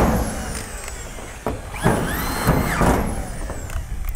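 Corded screw guns driving roofing screws into corrugated steel roof panels. The motors whine in several short bursts, rising and falling in pitch.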